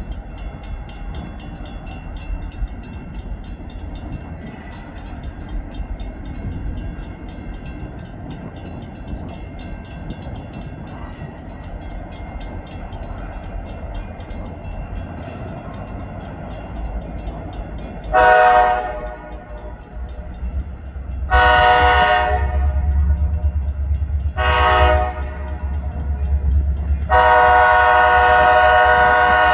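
Diesel freight locomotive horn blowing the grade-crossing signal: two long blasts, a short one, then a long one that is still sounding at the end. Under it the deep rumble of the locomotive grows louder as it nears.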